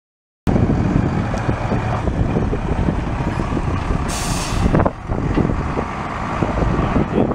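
International 4900 refuse truck with its DT466E diesel running, a steady low rumble, with a short burst of air hiss from the truck's air system about four seconds in.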